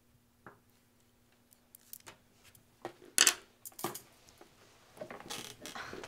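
Graphite pencil sketching on sketchpad paper: a few short, separate scratchy strokes, the loudest just after three seconds in, then a longer run of shading strokes near the end.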